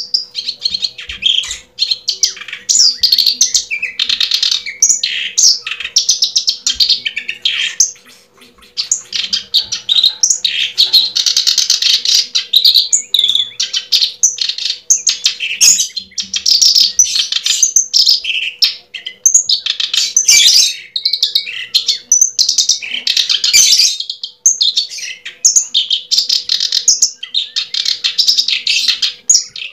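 Birds chirping and singing, high-pitched and nearly continuous, with a faint steady hum underneath.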